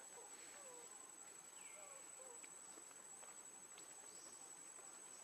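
Faint outdoor ambience: a steady high-pitched insect drone, with a few soft chirps and faint ticks.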